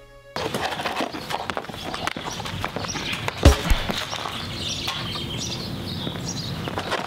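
Sad music cuts off abruptly just after the start. It gives way to a noisy mix of clatter, scuffs and knocks, with one loud thump about three and a half seconds in.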